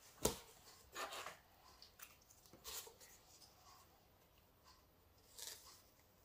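Packaging being handled: a packing tube holding a rolled canvas gives one sharp knock, then a few short, quieter crinkling rustles.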